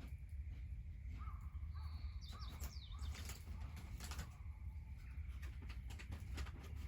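Wood bonfire crackling with irregular sharp pops and clicks over a steady low rumble, while birds call in short chirps.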